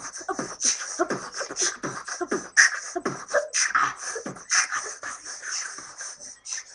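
Beatboxing: a person making rhythmic mouth percussion, with quick hissed hi-hat sounds and short, falling vocal booms.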